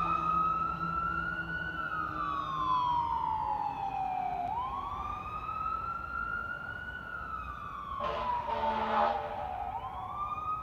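Fire engine siren on wail, a pitch that climbs, peaks and slides slowly back down, about five seconds per cycle, two full cycles and the start of a third. A short rough burst of noise cuts in about eight seconds in.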